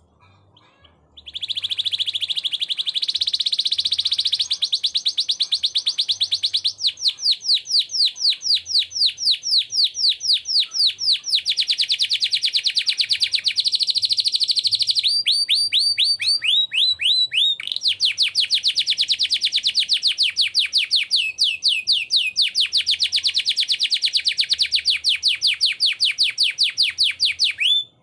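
Domestic canary singing one long, unbroken song of fast rolling trills, many notes a second, changing phrase every few seconds, with a short run of slower, separate notes about halfway through. The song starts about a second in and stops suddenly at the very end.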